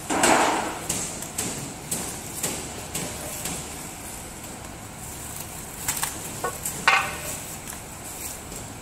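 Plastic wrapping film rustling as stainless-steel conveyor frame sections are handled, with scattered knocks and clinks of the metal parts; the loudest rustle comes right at the start and a sharp clank about seven seconds in.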